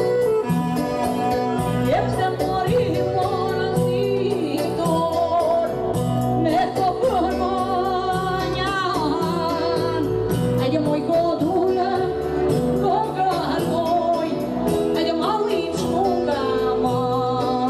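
Live Albanian dance music: a woman singing into a microphone over a band of clarinet, keyboard and def frame drum, with a steady repeating beat and a wavering, ornamented melody.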